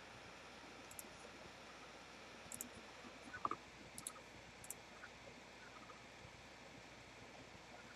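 Faint clicks of a computer mouse, a handful scattered through the first half, with little else but low background hiss.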